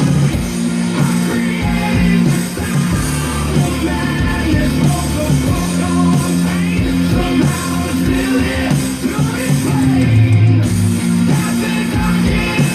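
Hard rock music: distorted electric guitars, bass and a steady drum beat, with some singing.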